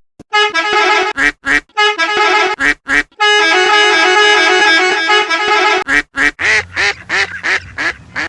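Digitally altered variations of a musical bus-horn sound effect played back to back: a string of short honked notes, then one long held horn chord, then a warbling, wobbling-pitch version with a low hum beneath it near the end.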